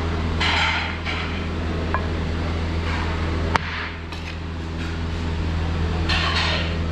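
Metal ladle scraping and scooping cooked rice from a large steel pot in three short swishes, with a sharp clink of metal about halfway through. A steady low mechanical hum runs underneath.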